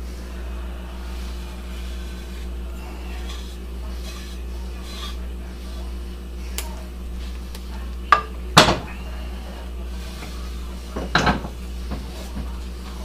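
A spoon scraping thick chocolate fudge out of a metal pot into a glass baking dish, with a few sharp clanks of metal a little past halfway and another near the end as the pot is set back down on the stove grate. A steady low hum runs underneath.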